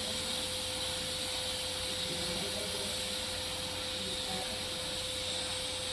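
Welding arc on a pipe joint hissing steadily, with a steady hum underneath.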